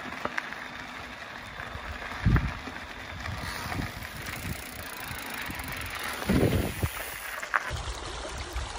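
Mountain bike being ridden along a trail: a steady rush of wind and tyre noise, with a few faint clicks and a couple of dull thumps.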